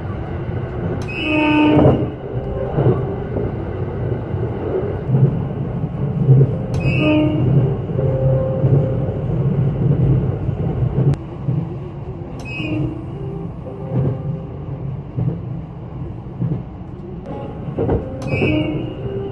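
681 series limited express train running, heard from inside its lead car: a steady low rumble, broken by four short horn blasts spaced about five to six seconds apart. The blasts are warnings sounded for track maintenance workers beside the line.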